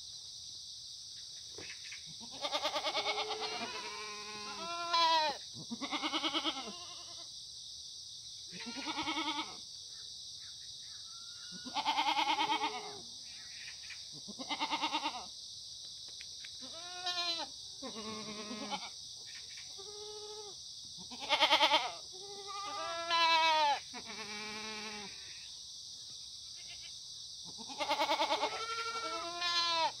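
Korean black goats bleating over and over: about a dozen wavering calls at different pitches from several animals in the herd, each lasting half a second to a second, with short gaps between them.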